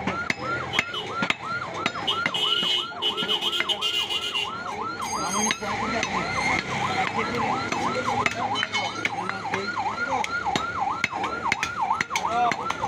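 An electronic siren warbling fast and steadily, its pitch dipping and rising about five times a second. Scattered sharp clicks and knocks are heard over it.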